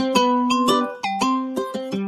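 Background music: a melody picked on a plucked string instrument, ukulele-like, about three or four notes a second.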